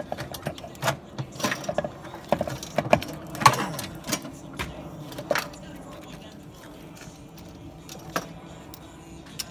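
Cordless drill unscrewing the metal band clamp on a Humvee's air-filter housing, with clicks and metallic clanks as the clamp is worked loose and pulled off. The busiest and loudest part is in the first half, with only a few clicks after that.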